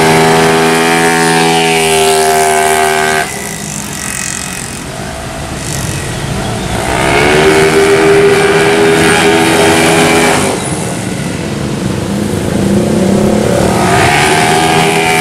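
Racing automatic scooter engine at full throttle, its note climbing and then holding high and steady. This happens in three passes: the first cuts off abruptly about three seconds in, the second runs from about seven to ten seconds, and the third begins near the end.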